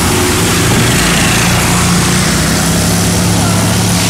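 Small engines of six-wheeled amphibious ATVs running steadily as the machines drive along a muddy trail, with a steady engine hum.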